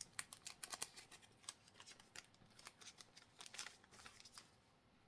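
Faint, quick clicks and rustles of Pokémon trading cards being handled and slid through the hands, thinning out after about four seconds.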